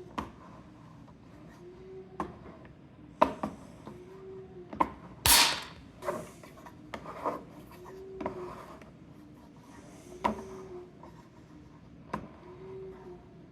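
Hand-operated tensile test fixture being worked: scattered clicks and rubbing, with a short creak about every two seconds. About five seconds in comes one louder, harsh burst of about half a second.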